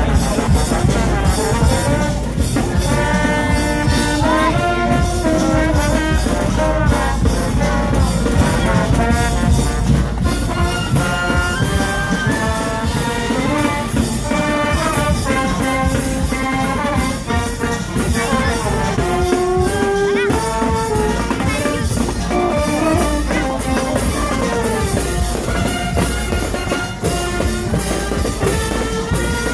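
Street brass band playing a lively tune: trumpets, trombones, saxophone and sousaphone over a steady bass-drum beat.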